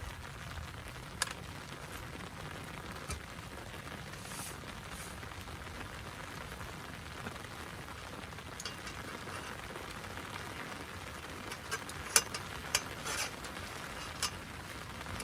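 Steady rain hissing on a tent, with a few sharp louder taps of heavier drops, a handful of them clustered near the end.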